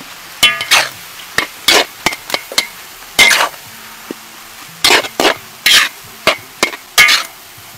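Long-handled metal spatula scraping and turning fried rice with chilies and chives in a large steel wok, in short, sharp strokes about once or twice a second over a steady frying hiss.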